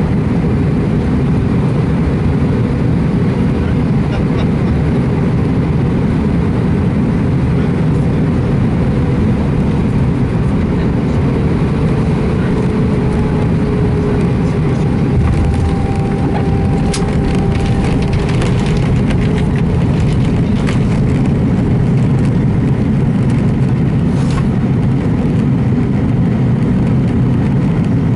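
Airbus A320 cabin noise during landing: a steady engine and airflow rush on final approach, then knocks and rattles a little past halfway as the wheels touch down and the jet rolls out on the runway with its spoilers up.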